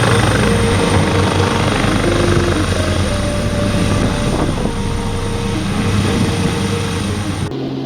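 AgustaWestland AW139 rescue helicopter running, with the pulsing thud of its rotor over a steady high turbine whine. It cuts off suddenly near the end, giving way to a steady engine drone.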